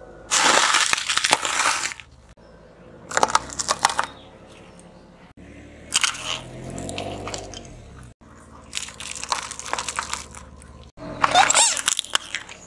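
A car tyre rolling over and crushing a string of small objects one after another, among them a wrapped packet of crackers, a bundle of plastic drinking straws and a small cardboard box. There are five separate bursts of crunching and cracking, each about a second long, with a low hum in between about six seconds in.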